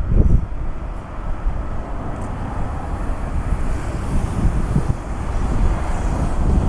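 Wind buffeting the microphone in gusts over a steady low rumble.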